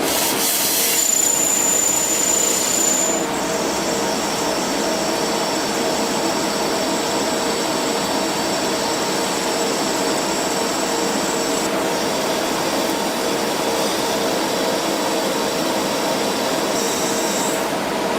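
Large CNC lathe machining metal: a steady mechanical whir with several held tones and a thin high whine over the first few seconds.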